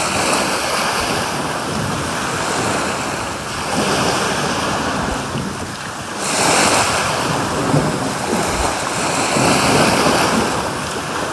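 Sea surf washing onto a beach, swelling louder every few seconds as each wave comes in, with wind buffeting the microphone.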